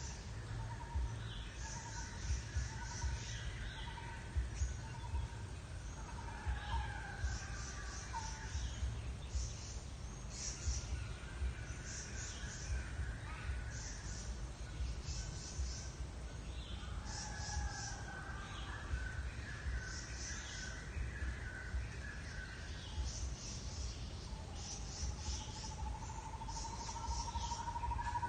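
Outdoor ambience of repeated short, high chirping calls and longer whistled notes, over a steady low rumble.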